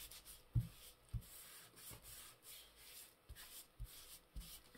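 Faint rubbing and rustling of paper being handled and smoothed down on a craft desk, with a few soft, dull thuds on the tabletop.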